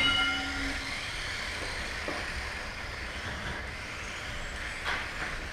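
Mini-Z 1:28-scale electric RC cars racing, their small motors giving a steady high whine that shifts in pitch with speed. A short electronic beep sounds at the start.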